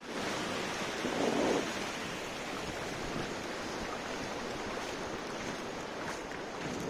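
Ocean surf breaking and washing up the beach, a steady rushing noise, with wind on the microphone and a louder swell about a second in.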